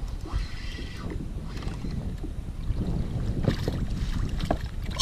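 Wind buffeting the microphone over water around a kayak, with a few sharp splashes about three and a half to four and a half seconds in as a hooked fish is brought to the surface beside the hull.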